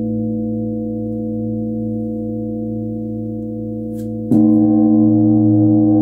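Large bilo, a flat plate bell tuned to 111 Hz, ringing on with a steady deep hum and overtones. A little over four seconds in it is struck again with a mallet, and the ring swells suddenly louder and brighter, then sustains.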